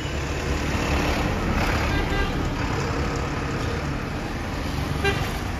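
Road traffic noise: a steady rumble of passing vehicles on a city street, with faint voices in the background.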